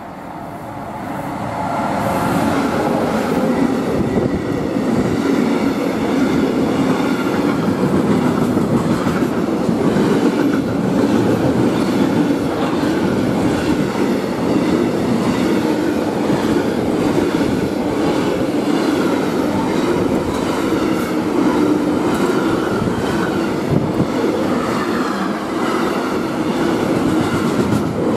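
Freight train passing at speed: an electric locomotive approaches and the sound rises over the first two seconds. Then a long string of wagons carrying semi-trailers rolls by with a steady rumble and clickety-clack of wheels over rail joints.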